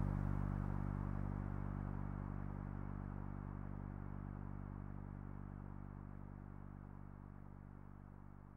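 Sustained low synthesizer drone, several steady low tones held together as one chord, fading out slowly and evenly as an ambient electronic track ends.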